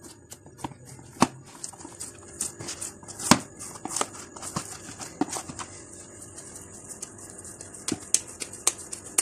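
Hands kneading soft flour dough in a plastic tub: irregular sticky slaps and squelches, with a few sharper clicks, the loudest about a second and three seconds in.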